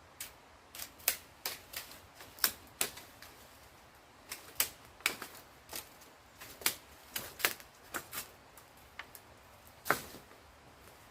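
An irregular run of about two dozen sharp clicks or snaps, some in quick pairs, with a louder one near the end.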